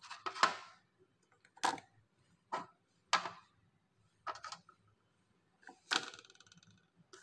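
Plastic baby-bottle nipples and caps being set one by one into the plastic rack of a Beurer steam sterilizer: a handful of short, separate plastic clacks and knocks, about one a second.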